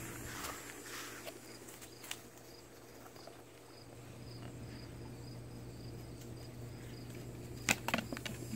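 A cricket chirping steadily in the background, a short high chirp about three times a second. Near the end come a few sharp clicks as the puppy grabs a plastic frisbee.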